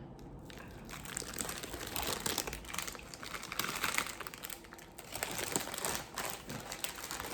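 Plastic snack wrappers and packets crinkling irregularly as they are handled.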